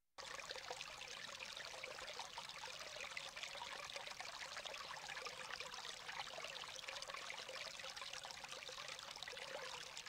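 Quiet recorded sound of running, trickling water, starting abruptly out of silence as the opening of an album track, with a faint steady tone underneath.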